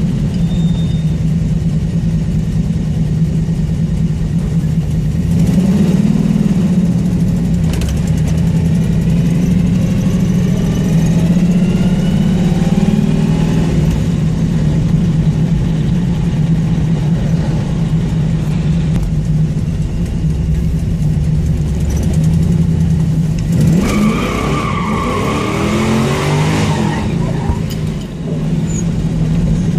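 Car engine and exhaust running with a steady loud drone; the car has an exhaust leak. The pitch sweeps upward twice, once about five seconds in and again near the end.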